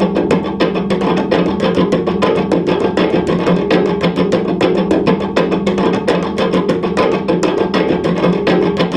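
Cello played experimentally as a sound box: a fast, even run of sharp wooden clicks, about seven or eight a second, over a steady low drone.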